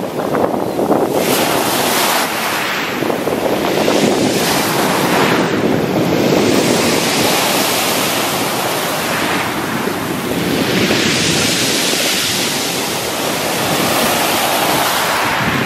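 Sea surf breaking on a pebble beach: waves crash and wash up over the shingle and drain back, several in turn, each swelling and easing away.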